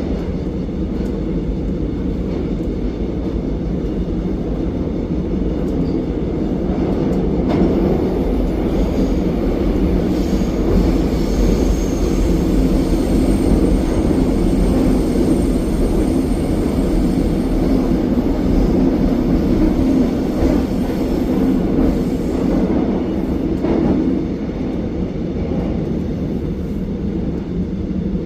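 Cabin sound of a Korail Suin-Bundang line electric multiple unit running at speed through a tunnel: a steady heavy rumble of wheels on rail that grows somewhat louder through the middle, with a faint high whine about a third of the way in.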